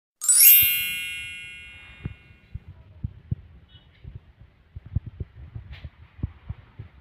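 A bright chime sound effect strikes just after the start, many high ringing tones fading out over about two seconds. It is followed by irregular, soft low thumps.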